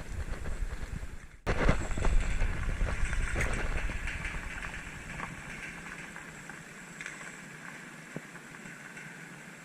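Wind on the microphone with water sounds, and a few light clicks. The sound cuts off abruptly about a second and a half in and resumes straight away, loudest just after, then the rumble eases off.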